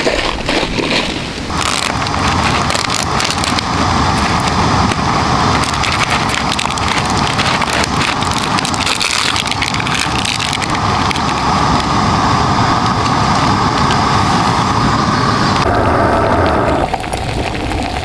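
Canister gas stove burning with a steady hiss under its pot of water, which is coming to a hard boil. A few light clicks of handling come first, and the hiss cuts off about a second before the end.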